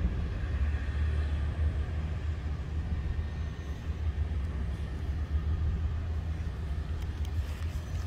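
Steady low outdoor rumble, with the faint high tone of the STL-10 tornado siren dying away in the first couple of seconds.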